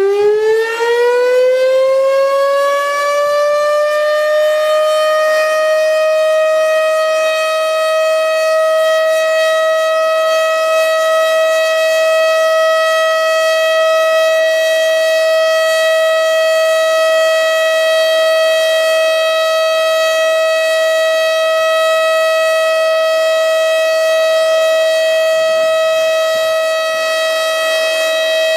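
Federal Signal STH 10B outdoor warning siren sounding its steady Alert signal. Its pitch is still climbing as it winds up over the first few seconds, then it holds one loud, steady high tone.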